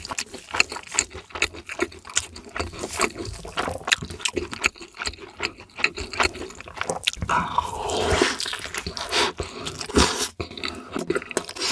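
Close-miked eating sounds: rapid crunching and chewing of crispy fried food, many sharp crackles in quick succession.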